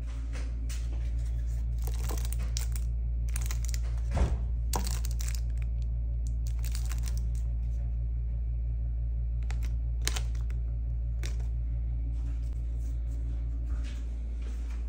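Steady low hum in a small tiled room, with frequent brief rustling and brushing noises and a sharp knock about four seconds in, typical of a phone being handled close to its microphone.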